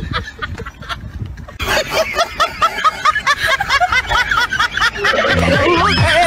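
Added comic soundtrack: a fast run of high, squeaky, rising-and-falling giggle-like notes, sped-up cartoon laughter, joined by a repeating bass line of music about five seconds in.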